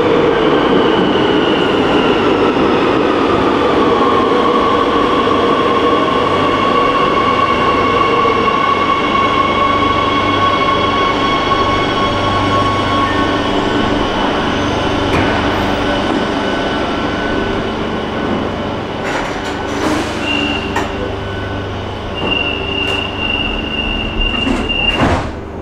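Madrid Metro train pulling into the station, its rumble and whine falling in pitch as it brakes to a stop, then running quietly at the platform. Near the end comes a fast, high door-warning beeping, cut off by a thud as the doors shut.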